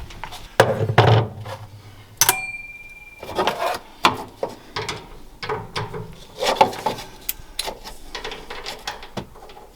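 Metal hand tools at work on the bolts of a car's fuel pump access cover: irregular clicking, rattling and scraping, with one sharp, briefly ringing metal clink about two seconds in.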